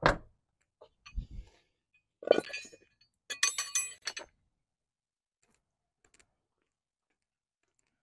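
Metal tools being handled: a few short knocks, then a burst of metallic clinking with a ringing tone a little before halfway.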